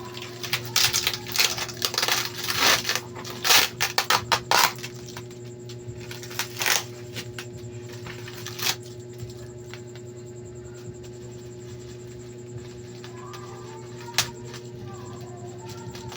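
Packaging being handled while unboxing an air cooler: a quick run of clicks, taps and rustles over the first five seconds, a few more later on, over a steady low hum.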